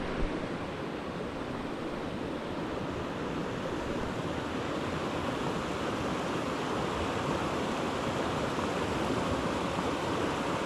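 Swift, shallow creek water rushing steadily over a rocky riffle.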